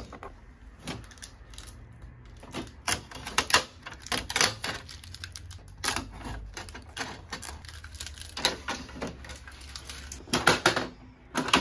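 Plastic casing and trays of a new Epson ET-2810 inkjet printer being handled while its packing tape and protective film are stripped off: a string of irregular plastic clicks, taps and knocks, with a cluster of louder knocks near the end.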